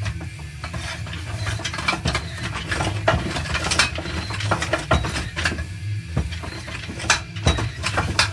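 Steel transmission parts clinking and knocking irregularly as the 4L60E's input drum and reverse input drum are turned and pushed to work the 3-4 clutch plates into engagement on the front planet.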